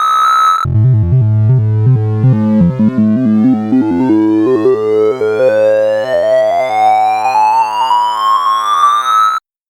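Sorting-algorithm sonification: synthesized computer tones. A held high tone cuts off under a second in, then a stream of short tones climbs steadily in pitch for about nine seconds and stops abruptly.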